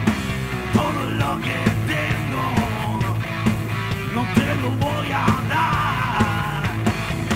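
Live rock trio playing loud: electric guitar, bass guitar and drums, with the bassist singing over them.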